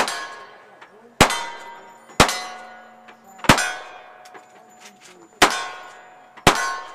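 Six gunshots at an uneven pace, roughly a second or two apart, each followed by the ringing clang of a steel target being hit.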